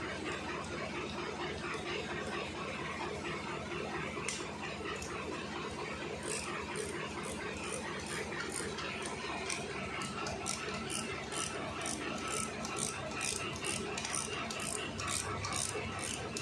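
Socket ratchet wrench clicking in a steady run, a few clicks a second, as it runs bolts in on an Eicher 485 tractor's differential case.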